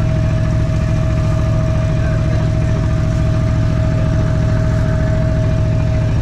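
A boat's engine running steadily as a low drone, with a steady high whine above it that stops near the end.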